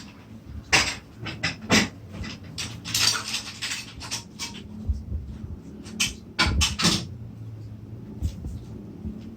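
A string of irregular sharp knocks, clicks and rattles, the loudest about a second in, near two seconds and around six to seven seconds, over a low steady hum.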